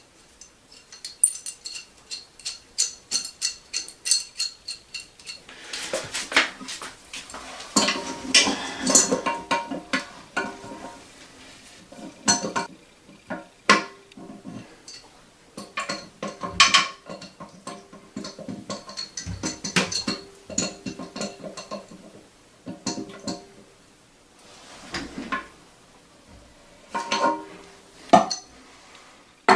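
Adjustable wrench working the plastic supply nut under a toilet tank: many short clinks and knocks of metal on the fittings, some with a brief ringing, in irregular runs.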